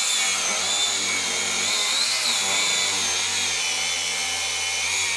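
Angle grinder running against metal at a car's wheel hub: a steady high whine whose pitch wavers slightly as the disc bites.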